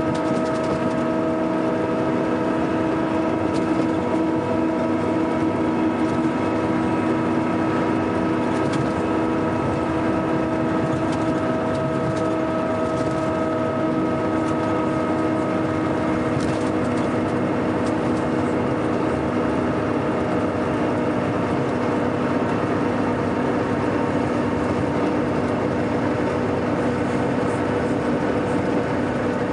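Scania K420 coach's engine running steadily, an even drone with several constant tones that stays level throughout.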